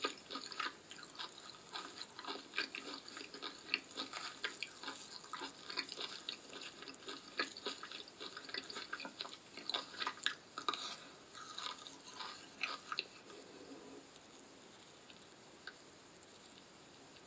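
Faint, close-miked wet clicking and crackling of fingers picking and peeling apart a cooked horseshoe crab's shell and roe, thinning out to a few stray clicks about 13 seconds in.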